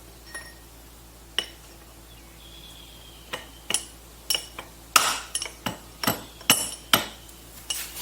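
Metal tools clinking and tapping against metal pump parts: sharp ringing taps, a few at first, then many in quick succession from about halfway in.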